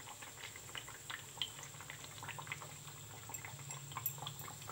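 Semolina biscuits deep-frying in oil on a low flame, the oil sizzling with a steady scatter of small crackles.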